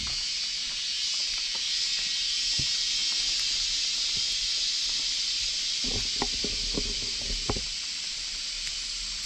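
Steady hiss of rushing, falling water from a waterfall, growing a little louder through the middle, with a few soft knocks.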